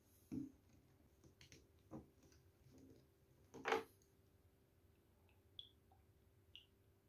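Quiet clicks and knocks of a glass bottle being handled and its screw cap twisted off, the loudest knock about three and a half seconds in. Then a few faint high plinks as spirit trickles into a shot glass.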